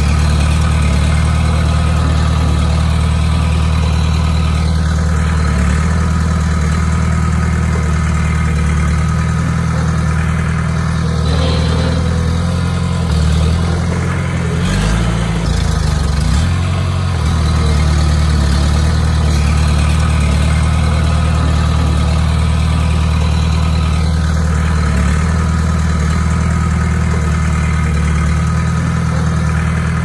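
Komatsu D20P bulldozer's diesel engine running steadily at a low, even note, which shifts and wavers for a few seconds about halfway through.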